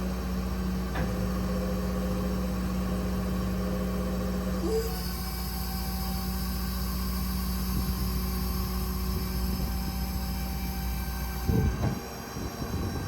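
Heavy truck machinery running steadily with a low rumble. A high hiss joins about five seconds in, and the low rumble drops off sharply near the end, as if the machine is shut down.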